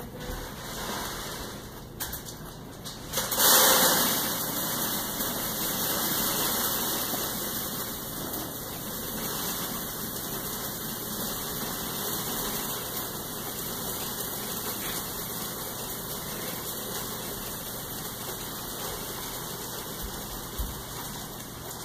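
Plastic bag crinkling and rustling steadily as a cat rummages with its head inside it, with a louder burst of crinkling about three seconds in.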